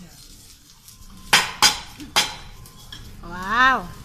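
A teppanyaki chef's metal spatulas clanging sharply three times in quick succession. Near the end a voice calls out once in a short rising-and-falling whoop.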